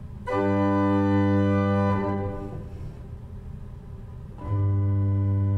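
1874 Johnson & Son tracker-action pipe organ sounding two held chords, each about two seconds long, with a short gap between them. The chords show off its piano and forte combination pedals, early mechanical presets that change which stops are drawn.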